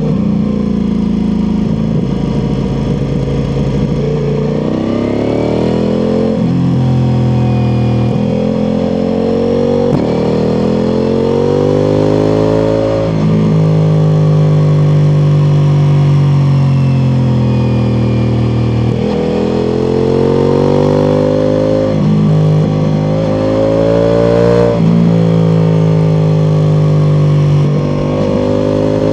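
Ducati Multistrada V4 Pikes Peak's V4 engine through an Akrapovic exhaust, ridden hard. The engine speed climbs and falls over and over as the bike accelerates, shifts and rolls off for bends, holding a steady high note for a few seconds in the middle.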